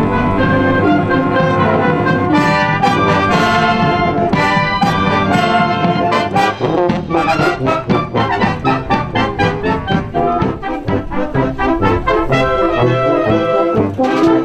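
A wind band led by trumpets and trombones playing a piece: full held chords for the first several seconds, then a brisker passage of short, rhythmic notes.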